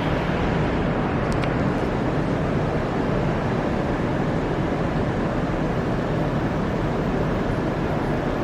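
Steady outdoor background noise, an even rush with no distinct events apart from one faint click about a second in.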